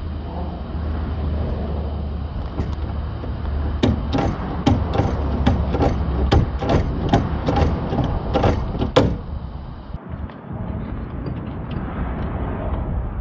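Ratchet wrench on a long extension clicking, about a dozen sharp clicks roughly two a second between about four and nine seconds in, as the bolts holding a car door's window frame are worked loose. Wind rumbles on the microphone underneath.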